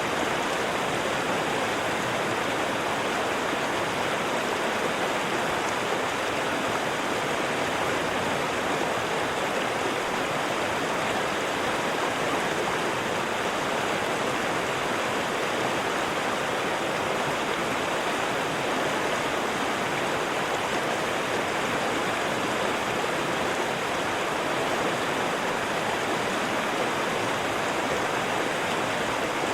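Waterfall: water falling and splashing in a steady, unbroken rush, its level constant throughout.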